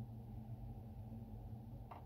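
Steady low hum, with one faint click near the end.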